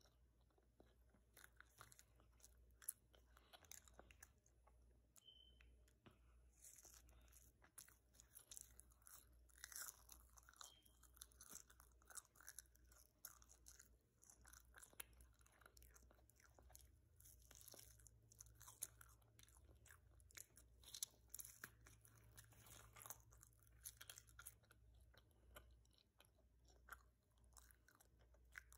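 Faint, close-up chewing of a marshmallow by a child: irregular wet smacking clicks and pops of lips and tongue, coming more thickly after the first several seconds.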